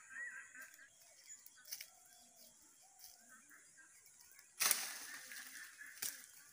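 A long pole knocking and shaking mango tree branches: a sudden loud rustle of leaves about four and a half seconds in that fades within a second, then a sharp knock a moment later.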